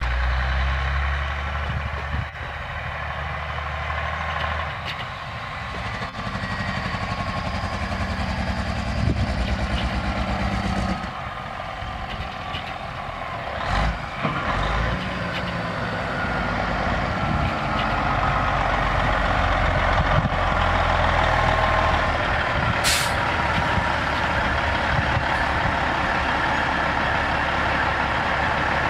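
Kenworth W900 dump truck's Caterpillar 3406E inline-six diesel running as the truck drives up, growing louder as it nears, its note dropping and climbing again several times. A short sharp hiss of air cuts in about three quarters of the way through.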